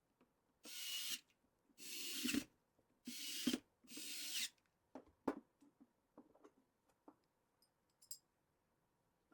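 Four short scraping strokes, each about half a second, in the first half, then scattered light clicks and taps of small metal parts being handled.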